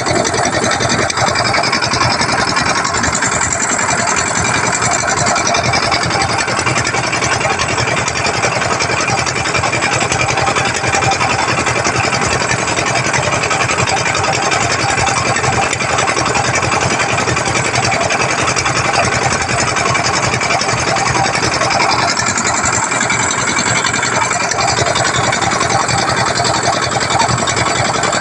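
Small boat engine running steadily at constant speed, with a dense, unbroken mechanical rattle.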